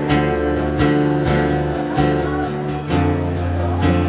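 Two acoustic guitars strummed together in an instrumental passage with no singing, moving to a new chord about three seconds in.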